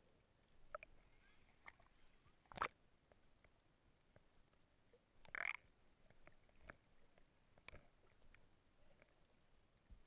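Near silence heard through a sealed underwater camera housing, broken by scattered faint clicks and knocks, the sharpest a little after two seconds, and a short louder rush of noise about halfway.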